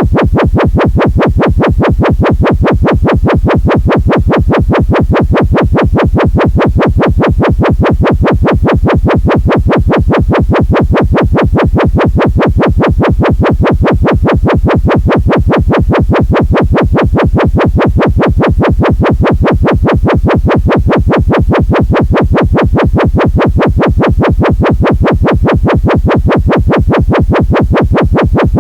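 Synthesized intruder alarm: a loud electronic tone pulsing rapidly and evenly, repeating without change.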